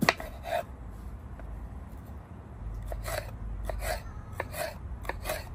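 Kitchen knife slicing a red bell pepper into strips on a wooden cutting board, each cut ending in a knock of the blade on the board. One sharp cut at the start and another half a second later, then a quicker run of about seven cuts from about three seconds in.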